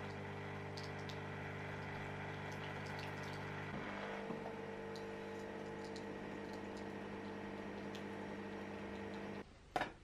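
Canophéa coffee machine running as it brews: a steady pump hum with liquid filling the cup. The hum shifts in pitch about four seconds in and cuts off suddenly near the end, followed by a short sharp click.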